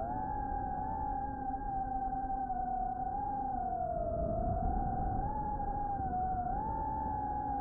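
FPV quadcopter's brushless motors and propellers whining, the pitch drifting up and down with throttle, rising a little about five seconds in and again near the end, over a low rush of wind on the onboard camera's microphone.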